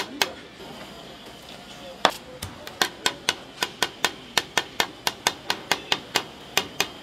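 A kitchen utensil striking a hard work surface in quick, even knocks of the kind made by chopping on a board. There is one knock, a pause, then from about two seconds in a steady run of about five a second, the first of them the loudest.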